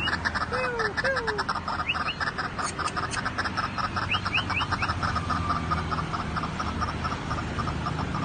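White-breasted waterhen calling: a rapid, continuous run of croaking pulses, with a few low arched notes in the first second and a half.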